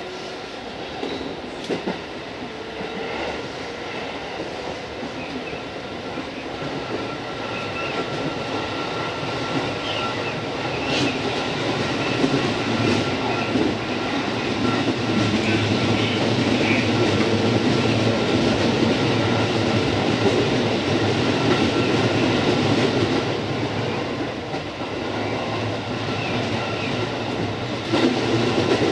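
JR East 205 series electric train running along the line, with steady wheel-on-rail noise and a few sharp clicks over the rails. The noise builds over the first dozen seconds, eases a little near the end, then picks up again.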